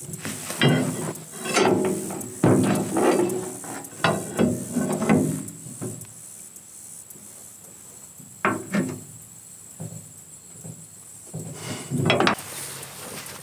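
Ringing metal clanks of a steel bar striking and levering against the rusted blade pan hub of a rotary mower, working the heat-soaked, rust-seized pan loose from the gearbox shaft. There is a quick string of clanks over the first five seconds, then a pause, then two more blows, the second near the end.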